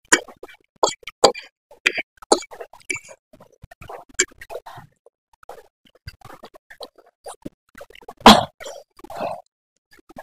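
Close-miked eating of noodles: irregular wet mouth clicks, smacks and short slurps, with a louder burst about eight seconds in.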